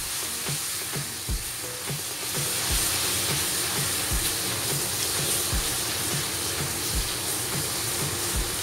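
Ground spice paste sizzling in hot oil in an aluminium wok, with a steady hiss as it is stirred with a spatula.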